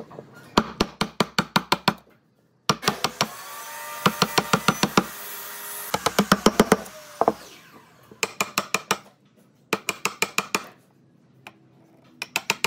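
Quick runs of sharp knocks, about six a second, in several bursts broken by short pauses, like a tool tapping on wood.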